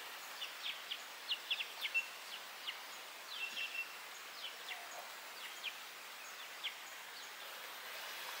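Small birds chirping: many short, high, downward-slurred chirps with a couple of brief whistled notes, busiest in the first few seconds and thinning out after, over a steady background hiss.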